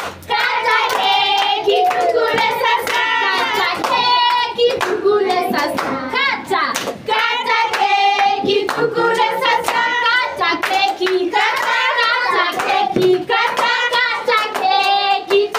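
A group of people singing together while clapping their hands in time throughout.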